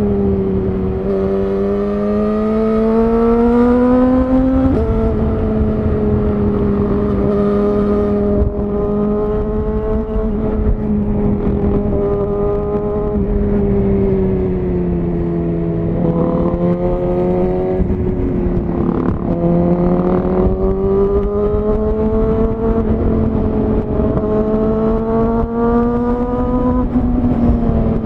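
Suzuki GSX-R1000R's inline-four engine running through a Yoshimura R-11 SQ exhaust at moderate road speed. Its note climbs gently, drops sharply about five seconds in as it shifts up a gear, sags and climbs again, and drops sharply once more near the end at another upshift.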